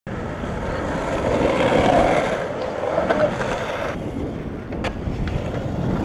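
Skateboard wheels rolling over the concrete of a skatepark bowl: a steady rushing roll that swells through a carve and then eases, with a few sharp clicks in the second half.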